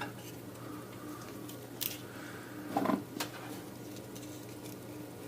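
Small tool-handling sounds at a workbench: a light click about two seconds in, then a brief scrape and knock a second later, over a steady faint electrical hum.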